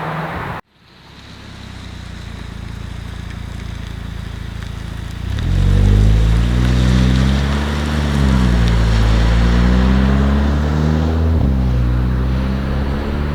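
Audi TT MK2 with a Milltek cat-back exhaust under way: a rushing road and wind noise builds after a sudden cut about half a second in, then the engine and exhaust note comes in strongly about five seconds in, climbing in pitch and then rising and falling.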